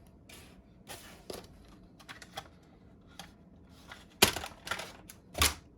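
Scattered light clicks and rustles of PC cables and their plastic connectors being handled, with two louder sharp clicks near the end.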